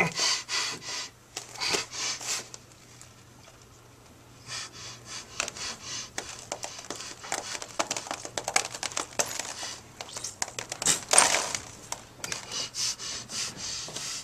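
Coins and other small hard objects dropping and clattering onto a cloth sheet on the floor in a run of sharp clicks, with a lull of about two seconds after the first couple of seconds, mixed with rustling of the sheet under a person's hands.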